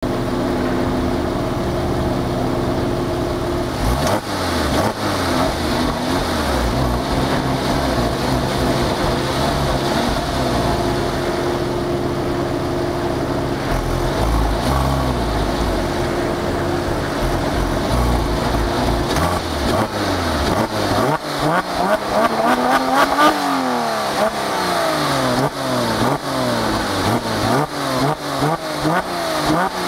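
Porsche 997 Carrera S 3.8-litre flat-six heard at its quad exhaust tips, standing still: it idles steadily with a brief blip about four seconds in, then is revved up and let fall back once, then blipped quickly over and over near the end.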